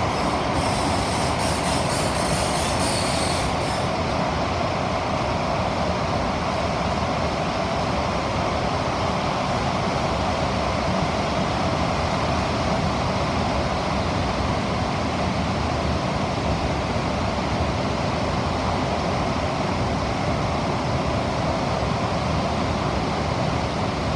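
SMRT CT251 metro train running between stations, heard inside the passenger cabin: a steady, dense rumble of wheels on rail and traction motors, with a brief high hiss in the first few seconds.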